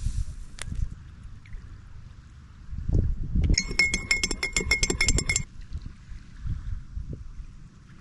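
Spoon stirring in a coffee cup: about two seconds of rapid ringing clinks, roughly ten a second, starting a little after halfway, over a low rumble of wind.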